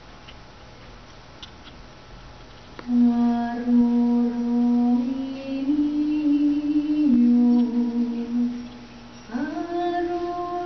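A woman's voice humming a slow tune in long, held notes, starting about three seconds in. It steps up and back down in pitch, breaks off briefly near the end, then slides up into a higher note.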